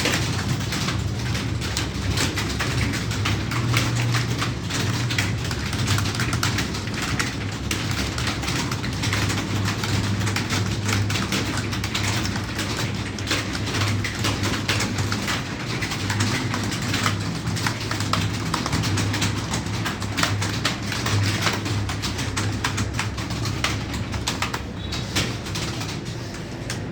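Dense, continuous clatter of many computer keyboards being typed on at once, over a low steady hum.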